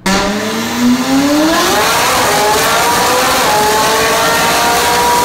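McLaren 675LT's twin-turbo V8 (M838T) running loud through its custom Secret Weapon exhaust on a chassis dyno. It starts suddenly, climbs in revs over the first two seconds, then holds steady at high revs.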